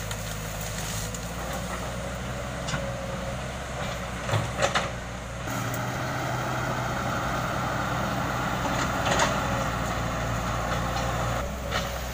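Caterpillar hydraulic excavator's diesel engine running steadily, with a few sharp cracks about four and a half seconds in. The machine gets louder and busier from about halfway.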